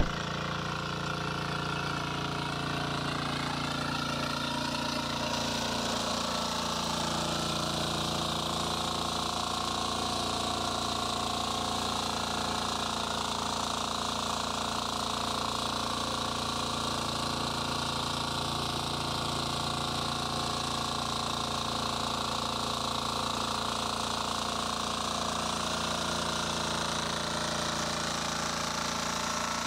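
Small engine of a Shrachi power weeder running steadily while its rotary tines work the soil between crop rows, with a brief loud clank right at the start.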